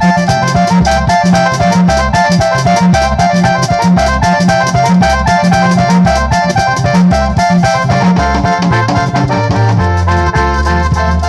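Loud instrumental music with a fast, steady beat, a heavy bass line and a stepping melody on top.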